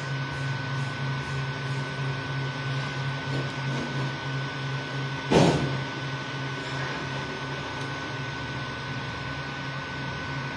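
Creality Ender 3 V2 3D printer printing in PLA: its stepper motors give a pulsing low hum as the print head and bed move, over a steady high whine. A single sharp knock sounds about five seconds in.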